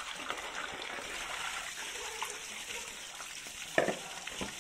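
Tap water pouring from a pipe and splashing into a plastic bowl and over hands as a fish is rinsed, with a sharp splash or knock about four seconds in.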